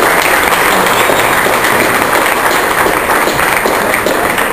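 Audience applauding: many hands clapping in a dense, steady patter, loud throughout.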